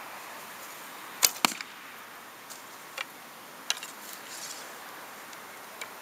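A Falco Storm traditional bow is shot: the string releases with a sharp crack, followed a fifth of a second later by a second sharp crack. Then come a few light clicks as the next arrow is taken and nocked.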